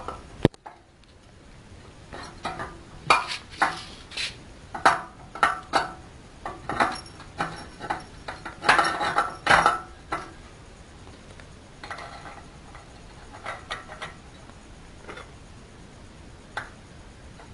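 Metal parts of a horizontal pellet-making machine's die head being handled: irregular clinks, clanks and scrapes as the threaded end ring is unscrewed. The clatter is dense for the first ten seconds or so and sparser after.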